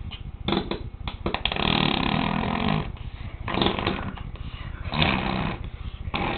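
A child making raspy, snore-like noises in several bursts, the longest about a second in and lasting nearly two seconds.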